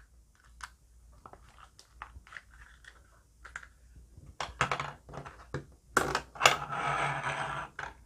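Leather Zippo lighter pouches and a metal Zippo lighter being handled: scattered small clicks and taps, then a second or so of leather rubbing and scraping about six seconds in.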